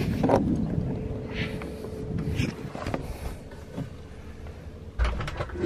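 Rustling and light knocks of a person moving and handling things, with a faint steady hum in the first few seconds and a low thump about five seconds in.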